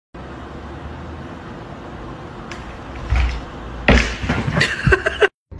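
Steady low background hum, then a knock and a quick run of sharp thumps and knocks in the last two seconds as a cat leaps and lands on a wooden floor.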